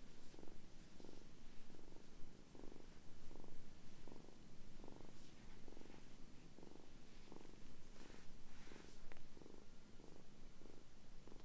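A kitten purring close to the microphone while being stroked, a steady rhythmic purr that swells and fades about two to three times a second. Briefly near the end there is a soft rustle of hands on fur and clothing.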